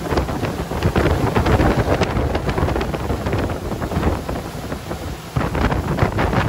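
Wind buffeting the microphone and water spray splashing beside a fast-moving open motorboat, a loud continuous rush with a heavy low rumble.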